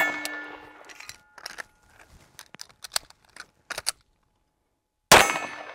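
The ringing of a steel target struck by a pistol shot dies away over about a second, then a handful of sharp clicks and knocks as the pistol's slide is racked against the belt holster to clear a malfunction. About five seconds in, another pistol shot rings the steel again.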